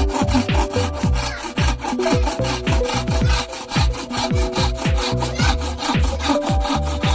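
Hand saw cutting through a block of wood in quick, even back-and-forth strokes.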